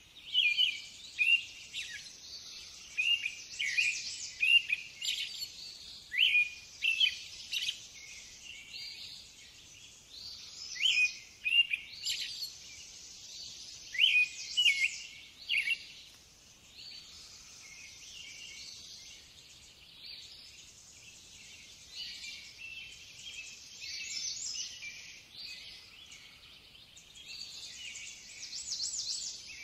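Small birds chirping and singing in quick, high, short notes, many in close succession, loudest and busiest in the first half and thinner later, over a steady high hiss.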